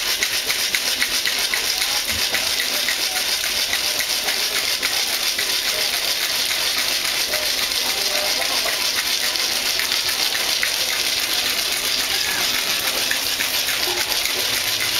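Ice rattling hard inside a metal cocktail shaker, shaken continuously in a fast, unbroken rhythm to chill vodka for martinis.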